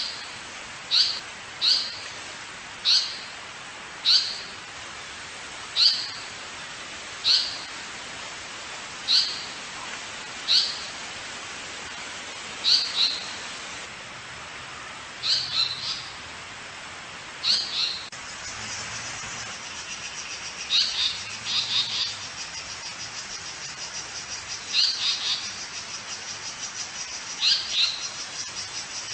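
A bird giving short, sharp high calls one at a time every second or two, some of them doubled. About two thirds of the way in, a steady, fast, high pulsing trill like a cricket's starts up and runs on under the calls.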